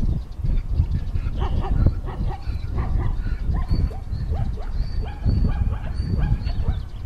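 Short, yelping animal calls, several a second, over a steady low rumble.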